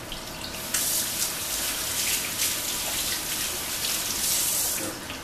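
Kitchen faucet turned on about a second in, water running into a stainless steel sink as batter is rinsed off hands, then shut off near the end.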